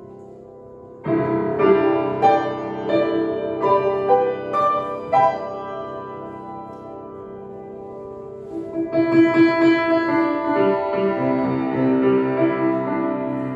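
Grand piano played solo: a loud chord about a second in, followed by a string of single struck notes that ring and fade, then a second loud passage of full chords from about nine seconds in.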